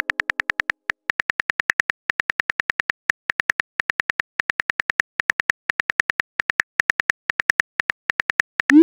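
Simulated phone keyboard clicks as a text message is typed out letter by letter, about eight quick clicks a second in short runs. Near the end a short rising swoosh as the message is sent.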